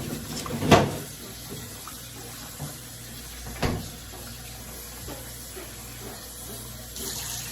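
Kitchen tap running steadily into a sink, with two sharp knocks, about a second in and near the middle, louder than the water.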